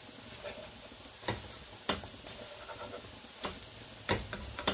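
Kaiserschmarrn pancake pieces sizzling faintly in a frying pan while a plastic slotted spatula cuts and pushes them, knocking against the pan several times.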